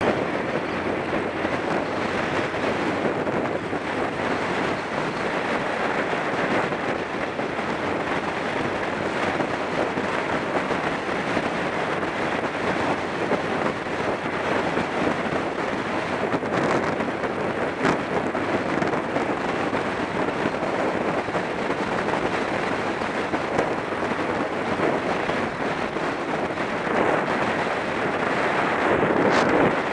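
Steady wind rush over the microphone of a camera mounted on a Sinnis Stealth 125 motorcycle riding at road speed, mixed with the bike's running and road noise. The noise grows a little louder near the end.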